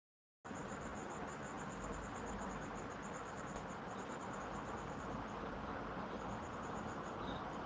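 A cricket chirping: a high, even pulse about seven times a second, pausing briefly about five seconds in, over a steady low hiss. The sound cuts in about half a second in, after a short dropout.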